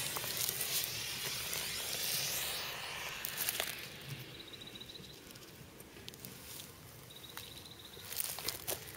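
A gopher smoke cartridge hissing as it burns, pushed down into a gopher burrow to fumigate it; the hiss is loud at first and dies down after about three and a half seconds. A faint high chirp sounds twice.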